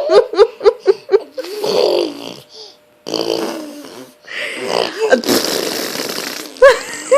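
A young child blowing raspberries with his lips: several long, sputtering mouth-made fart noises. A quick run of rising-and-falling vocal bursts comes in the first second.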